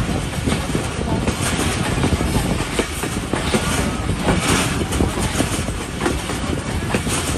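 Passenger train running along the track: a steady rush of wheel and running noise with a dense, irregular clatter of wheels on the rails.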